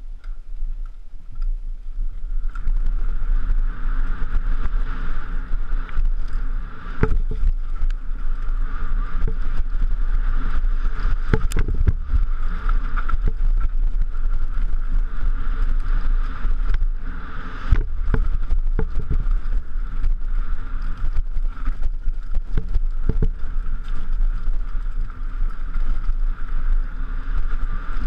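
Downhill mountain bike ridden fast down a gravel and dirt trail, heard from a helmet camera: a steady rumble of wind and tyres on the ground, with the bike knocking and rattling over bumps throughout. It picks up about two seconds in as the ride gets going.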